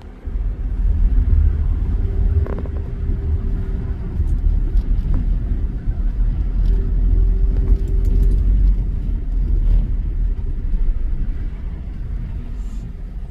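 Car driving in freeway traffic, heard from inside the cabin: a steady low rumble of engine and road noise.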